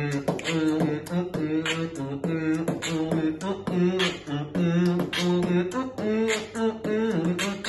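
A man singing a wordless tune in short rhythmic syllables, holding one note after another with quick percussive consonants between them, close to beatboxing.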